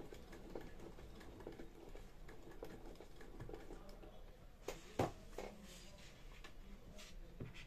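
Plastic clicks and knocks from handling an empty hand-crank plastic vegetable chopper. Light ticking comes about twice a second at first, then a few sharp plastic knocks about five seconds in, and one more click near the end.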